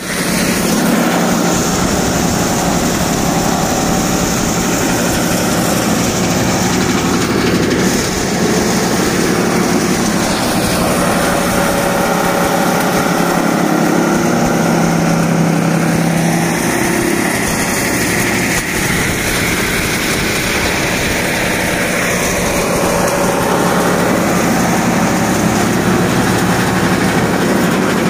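Tractor-driven babool wood-cutting machine (toka) running steadily and loudly, chipping babool logs, its cutting noise mixed with the tractor engine under load.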